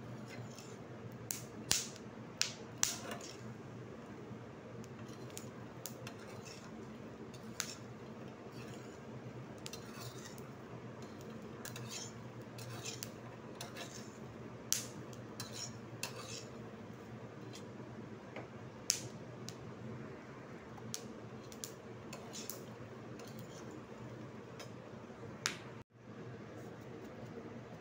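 Peanuts dry-roasting in a steel pan, stirred with a metal spatula: irregular sharp clicks and clinks of the nuts and spatula against the pan, the crackling "chatter" of roasting peanuts, loudest in the first few seconds. A steady low hum runs underneath.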